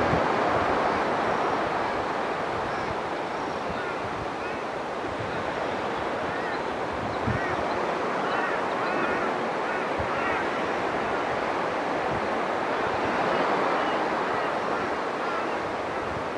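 Steady rushing of surf and wind, with faint short high chirps scattered through the middle and a brief soft knock about seven seconds in.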